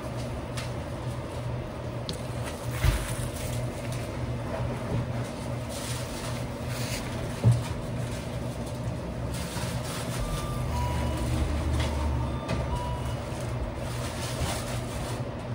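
Steady hum of restaurant kitchen equipment, with two sharp knocks, the louder one about halfway through, and a few short electronic beeps about two-thirds of the way in.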